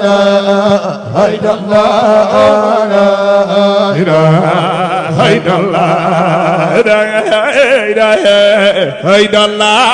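A man's voice chanting a Sufi zikr through a microphone and loudspeakers, the melody bending and ornamented, over a steady low drone.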